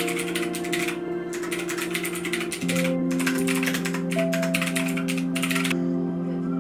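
Fast typing on a backlit computer keyboard, a dense run of key clicks with brief pauses, over soft background music with held chords; the typing stops near the end, leaving the music.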